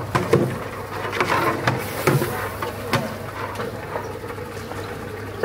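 Hands mixing in a large steel cooking pot of sauce, with scattered knocks and clicks against the metal, over a steady low hum.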